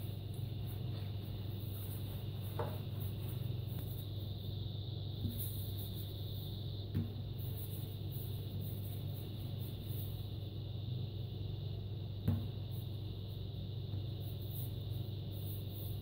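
Steady low hum with a thin high whine over it, and soft knocks of hands rolling dough on a countertop: three of them, the loudest near the end.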